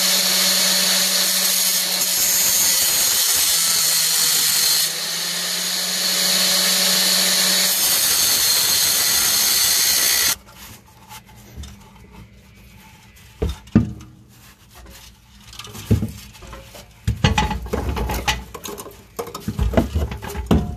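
Angle grinder with a cutoff wheel cutting through a car's steel exhaust pipe: a loud, steady grinding over the motor's hum for about ten seconds, stopping suddenly. After that come scattered knocks and clunks.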